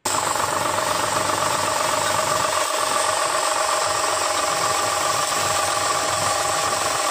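HTP sprayer running steadily: an electric motor driving a brass triplex piston pump through a belt, a loud even machine hum with a steady whine over it.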